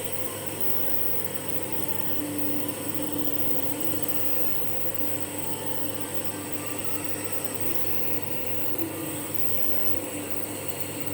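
Compressor nebulizer running during an inhalation treatment, a steady buzzing motor hum with an airy hiss.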